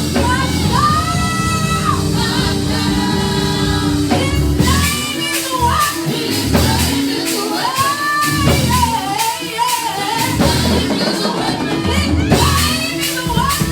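Church worship music: a singer's voice carrying a melody over a band with sustained keyboard or bass notes and steady percussion, tambourine among it.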